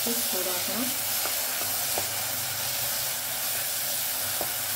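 Tomato paste frying with onions and spices in oil in a non-stick pan: a steady sizzle and hiss, with a few light scrapes and taps as a spatula stirs it.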